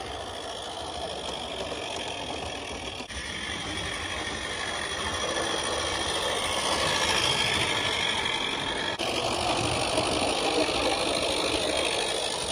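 Live steam Regner Lumberjack garden-scale locomotive running with its train, a steady hiss of steam mixed with the noise of the cars rolling along the track.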